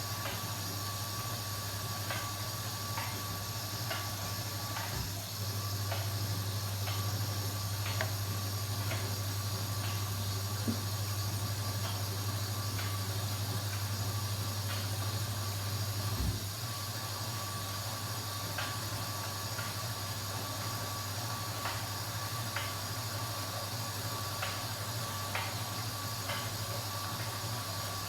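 Kenwood washing machine running: a steady motor hum that grows stronger about five seconds in and drops back at about sixteen seconds, as the drum turns for a spell. Light irregular clicks and a faint steady whine run over it.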